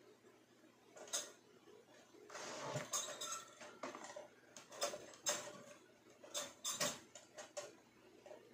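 Hands handling a stainless-steel toaster: irregular clicks and clattering knocks of plastic and metal parts around its end cover and carriage lever, in several short clusters.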